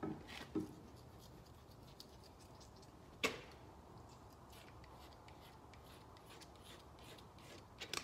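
Faint short scraping strokes of a razor blade across car window glass, taking off paint overspray, with one sharp click about three seconds in.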